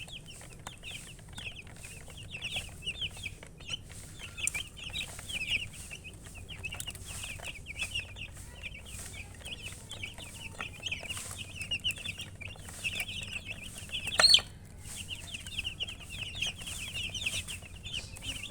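A group of chicks peeping continuously, many short high chirps overlapping without pause. About fourteen seconds in, one louder, sharper call stands out above them.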